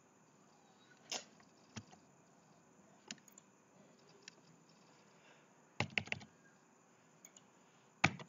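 Computer keyboard keystrokes and mouse clicks: a few single clicks spaced out, then a quick run of keystrokes about six seconds in and another just before the end.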